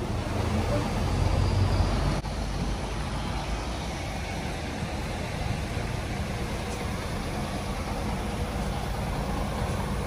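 Steady low rumble of a motor vehicle, engine and road noise.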